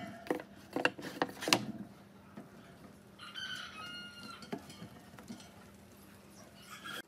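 Thin wooden wedge pieces knocking against each other and the tabletop as they are handled, several sharp knocks in the first two seconds. A rooster crows in the background about three seconds in.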